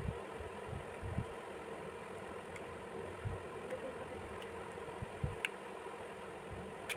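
Faint clicks and taps of a plastic stackable 5-in-1 lipstick being pulled apart and handled, scattered over a steady background hum.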